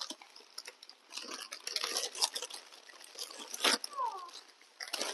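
Plastic snack packets crinkling and rustling as they are handled and torn open, with crisp snacks being crunched; a brief falling squeak sounds about four seconds in.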